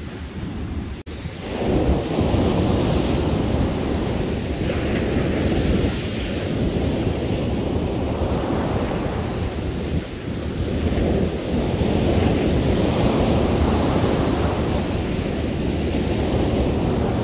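Ocean surf breaking and washing up a sandy beach, with wind buffeting the microphone. The wash swells louder twice, as waves come in about two seconds in and again past the middle.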